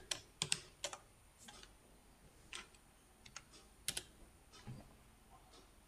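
Computer keyboard keys tapped in short, irregular runs of faint clicks, typing a command into the editor's command palette.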